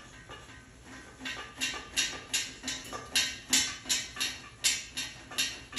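A cat knocking at something hard, making a quick run of sharp clinks, about three a second, that builds up about a second in and stays loud through the middle.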